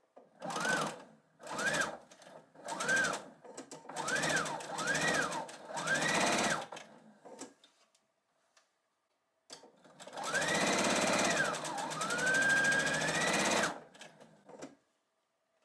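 Husqvarna Viking sewing machine stitching seams through pinned fabric pieces. Six short bursts come first, the motor pitch rising and falling with each. Then one longer run of about four seconds slows briefly in the middle and speeds up again.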